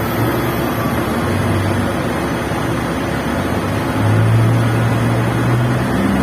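Heavy diesel mining machinery running: a steady, deep engine sound with a low hum that grows louder about four seconds in.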